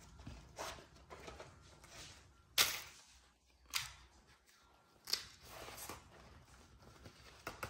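Fresh banana leaf crinkling and rustling as hands fold it and roll it into a wrapper, in a series of short, irregular crackles, the loudest about two and a half seconds in.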